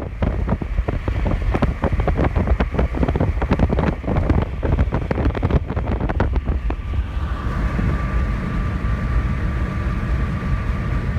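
Loud wind rumbling and buffeting against the microphone, with crackling for the first several seconds, then settling into a steadier rush with a faint high tone.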